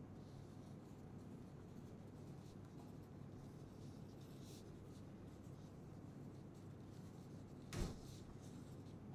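Faint scratching of a pencil writing on paper over a low room hum, with one sharp knock near the end.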